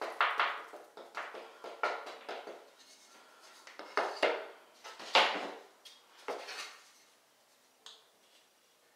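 Pieces of primed MDF baseboard trim being handled: irregular wooden knocks and scrapes as they are pulled off the wall corner and set down on the vinyl floor, the loudest knock about five seconds in, then only a few faint taps.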